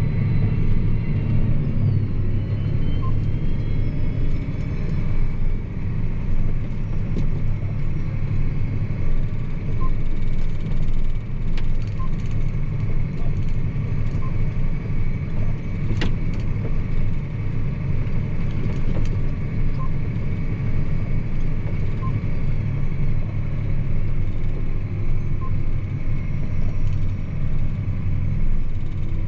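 John Deere 8245R tractor's six-cylinder diesel engine running steadily while hauling a loaded trailer, heard from inside the cab. Faint short pips recur about every two seconds, and there is a single sharp click about halfway through.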